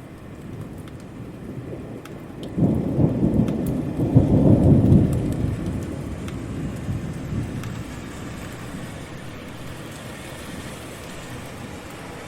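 Steady rain falling, with scattered drip clicks. About two and a half seconds in, a deep rumble of thunder breaks in, swells for a couple of seconds and slowly fades away.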